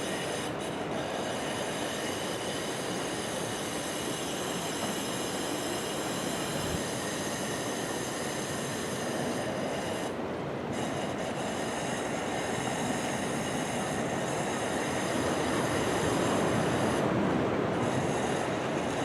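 Heavy typhoon surf: a steady rush of breaking waves that swells a little near the end, with faint high whining tones above it.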